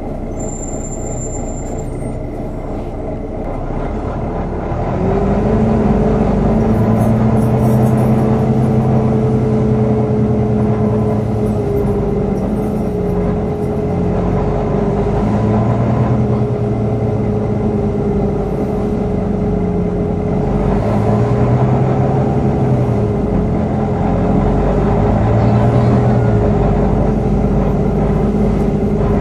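Volvo B9TL double-decker bus on the move, heard inside on the upper deck: the diesel engine is running, and about five seconds in the engine cooling fan cuts in with a steady whine that holds. Under it the engine note swells and fades several times.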